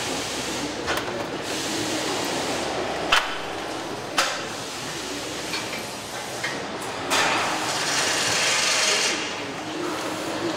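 Truck assembly-line noise: a steady background din with a few sharp metallic clanks. A loud hiss lasts about two seconds, starting about seven seconds in.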